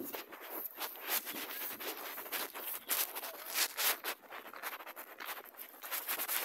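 Footsteps crunching on a dry gravel-and-dirt path, an irregular run of scuffs and crackles.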